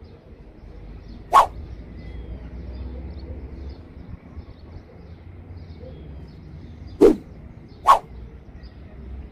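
Three short, sharp cracks: one about a second in and two close together near the end, over a faint low rumble.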